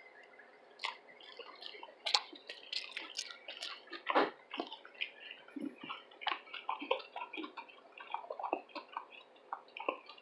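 Wet chewing and mouth sounds of someone eating: an irregular string of small clicks, smacks and squelches.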